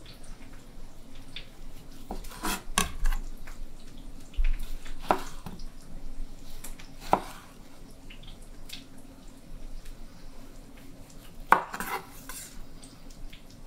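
Chef's knife slicing a tomato on a wooden cutting board: a handful of separate knocks, a second or more apart, as the blade comes down through the tomato onto the board.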